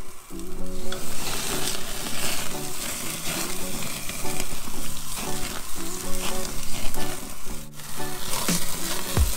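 Sacramento perch sizzling on the grates of a gas grill over open flame, a steady hiss with fine crackle that picks up about a second in. A music track with a repeating low melody plays underneath.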